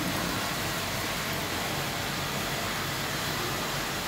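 Steady rush of water flowing through the pipework of a rainwater filter rig, with the drain valve shut. A lower rumble joins in right at the start and holds steady.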